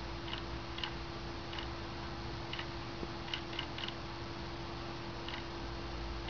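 Quartz wall clock movement ticking at irregular intervals, about eight ticks with some bunched close together and others a second or more apart. Its second hand is being stepped at varying speed by an ATtiny13a microcontroller, so it keeps no steady beat. A faint steady hum runs underneath.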